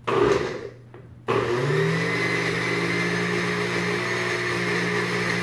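Countertop blender blending diced peaches and yogurt into a smoothie. A brief loud burst right at the start, then about a second in the motor switches on, spins up and runs steadily.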